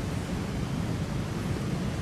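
Steady wind noise on the microphone outdoors: an even rushing hiss with a low rumble that does not change.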